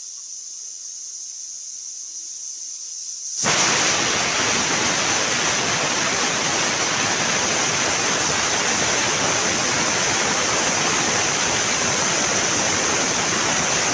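Pressure cooker letting off steam through its weighted whistle valve: a steady hiss that about three and a half seconds in jumps to a loud, steady rush of steam as the whistle blows, the sign that the cooker has come up to full pressure.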